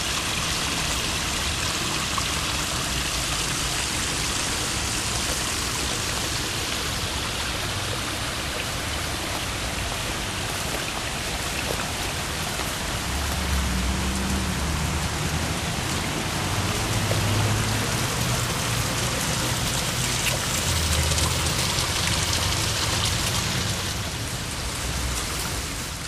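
Water of a pondless waterfall splashing and trickling down over rocks: a steady, even hiss of running water.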